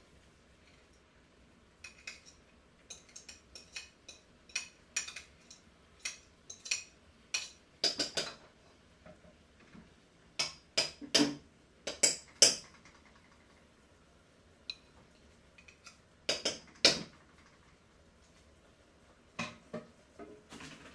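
Metal utensil clinking, tapping and scraping against stainless steel pots while tomato paste is scraped into a stew: scattered light clinks with a handful of louder clanks, the loudest in the middle.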